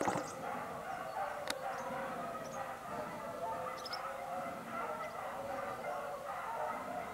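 Many birds calling at once in a steady, dense chatter, with short high chirps about a second and a half in and again around four seconds in.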